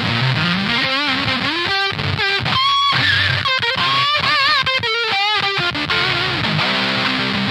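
Electric guitar played through the EarthQuaker Devices Data Corrupter's square-wave fuzz into a clean 100-watt Hiwatt head: a low chord, then a lead line of bent notes with vibrato that cut off abruptly under the fuzz's heavy gate, and low chords again near the end.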